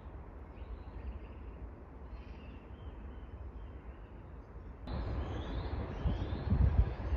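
Outdoor street ambience: a steady low rumble with faint bird chirps over it. It gets louder suddenly about five seconds in.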